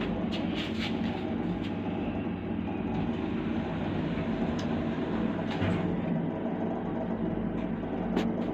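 Elevator car running between floors: a steady low mechanical hum and rumble, with a few light clicks and rattles.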